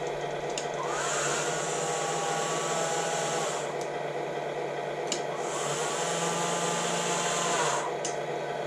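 Small electric motor in an RC model truck whirring twice, each run about two and a half seconds, its whine rising as it spins up and falling as it winds down, with a click at the start and stop of each run. A steady low hum sits under it.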